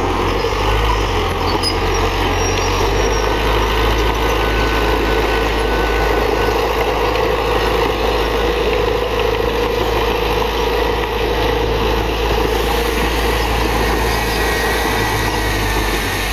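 Diesel engine of a Komatsu D31PX crawler bulldozer running steadily, a continuous low rumble with no pauses.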